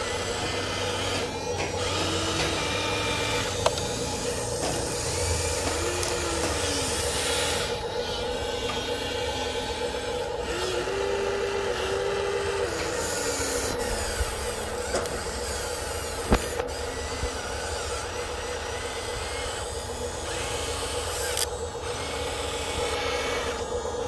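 Small electric motors and gearing of a Huina 1593 radio-controlled model excavator whirring as the boom, arm and bucket move, the pitch rising and falling with each movement over a steady hum, with a few sharp clicks.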